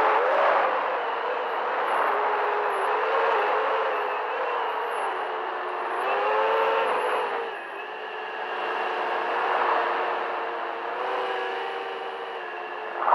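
FPV racing quadcopter's brushless motors and propellers whining, heard from the camera on board, the pitch rising and falling with the throttle, with a sharp climb and drop about six to seven seconds in.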